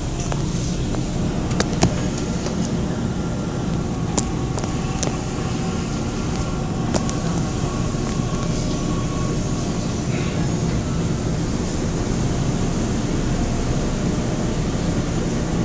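Inside a Korail electric commuter train running through a station without stopping: a steady low rumble of wheels on rail, with a few sharp clicks scattered through the first half.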